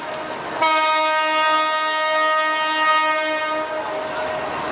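Train horn sounding one long steady blast that starts about half a second in, after a brief break, and fades out about three seconds later. The noise of a passenger train rolling past on the tracks runs underneath.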